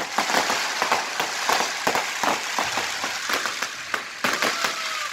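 Fireworks crackling: a dense, irregular run of rapid pops and sharp bangs over a steady crackling hiss, with a few louder reports.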